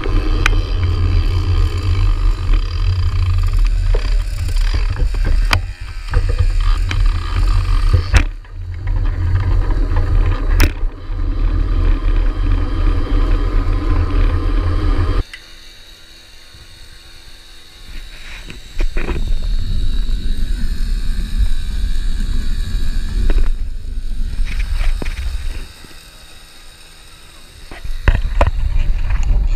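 Wind buffeting a moving camera's microphone as it follows a 33cc pocket bike, with the bike's small engine running underneath. The heavy wind rumble drops away twice for a few seconds, about halfway through and again near the end.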